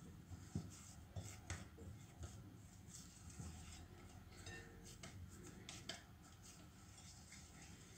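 Faint rubbing and squishing of hands kneading a soft maida-and-ghee dough in a glass bowl, with a few light knocks here and there.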